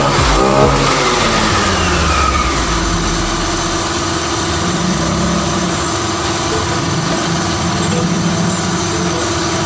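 Motorcycle engine winding down from a rev in a falling whine over the first couple of seconds, then idling steadily.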